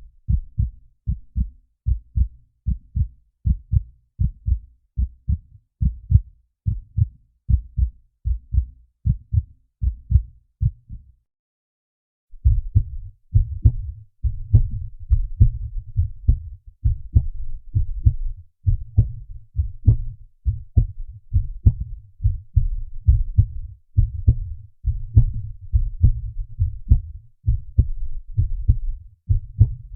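Heartbeat sound effects: a run of regular low thumps, then a brief silence about eleven seconds in, then a second heartbeat with faster, denser beats over a continuous low rumble.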